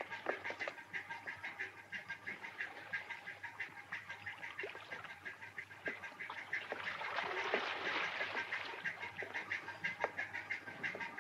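A flock of birds calling over one another in many short, quick squawks. The calls grow louder from about six to nine seconds in.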